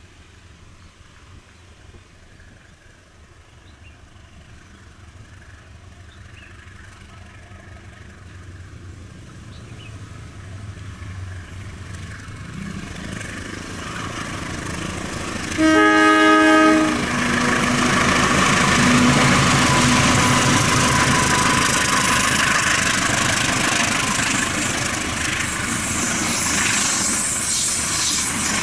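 A fast train approaching, its rumble building steadily, then about halfway through one short locomotive horn blast as it reaches the camera. Loud wheel-and-rail noise and wind of the passing carriages follow.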